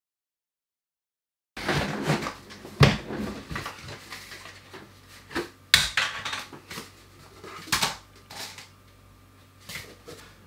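A cardboard postal tube being unpacked on a desk: a string of sharp knocks and clicks with rustling as the end cap comes off and the contents are pulled out and set down. It starts after about a second and a half of dead silence.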